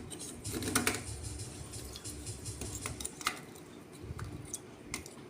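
Parts of a molded case circuit breaker being handled and fitted back together by hand: scattered small clicks and taps, with a denser clatter about half a second to a second in.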